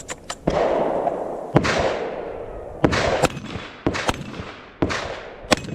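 Shotgun fired repeatedly in a rapid string, a shot about every second, each with a long reverberating tail.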